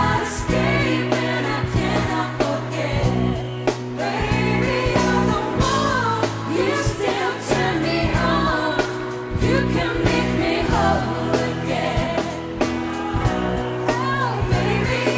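Live pop ballad: female vocal group singing through microphones over a backing band with steady bass, keyboards and guitar, the lead voice sliding between notes.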